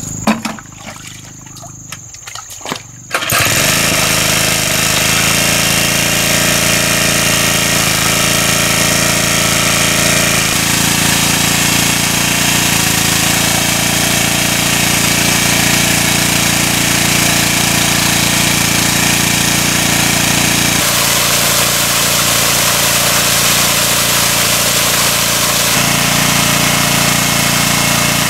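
Small petrol engine of a portable water pump starting about three seconds in, then running steadily at speed, with the rush of the pump's water jet spraying out.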